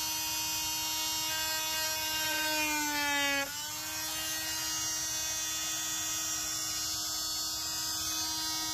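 Handheld corded rotary tool with a cutting wheel running at high speed, a steady whine. About two and a half seconds in, its pitch sags for about a second as the wheel is pressed into the plastic console trim, then snaps back up.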